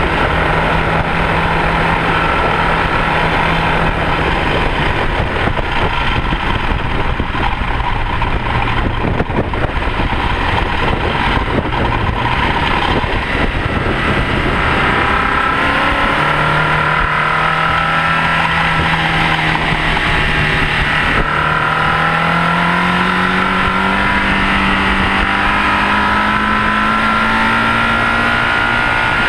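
A Mini's Rover K-series VVC four-cylinder engine running on track under heavy wind and road noise. It holds steady revs at first, then the revs climb slowly through the second half.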